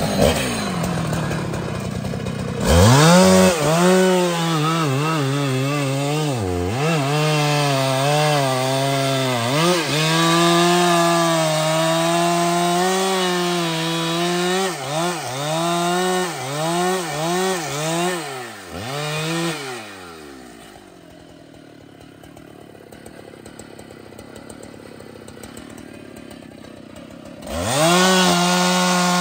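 Large two-stroke chainsaw cutting wood at full throttle, its engine note dipping and recovering again and again as the chain bogs under load. About twenty seconds in it drops back to a low idle for several seconds, then revs up again near the end.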